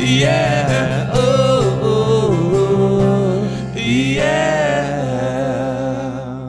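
Live band ending a song: two male voices singing drawn-out wordless lines over strummed acoustic guitar and electric bass. The last chord and held note fade away near the end.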